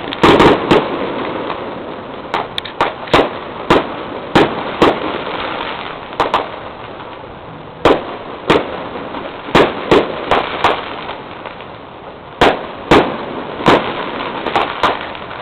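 Fireworks display exploding: a long run of sharp bangs at irregular intervals, at times several in quick succession, over a steady background hiss.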